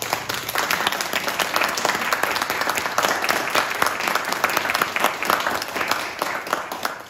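A small audience applauding, with many individual hand claps, which stop fairly abruptly near the end.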